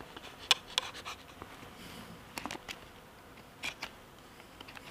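Bushcraft knife carving a green hazel stick: a series of short, irregular scraping cuts and clicks as the blade shaves wood from the edges of a notch.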